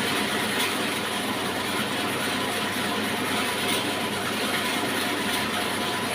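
Horizontal sawmill machine running with a steady mechanical noise.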